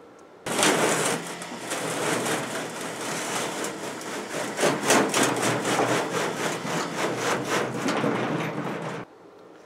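Steel pallet carrying a heavy power hammer scraping and grinding across a trailer's steel mesh deck as a winch drags it: a rough, crackling scrape that starts abruptly about half a second in and stops suddenly near the end.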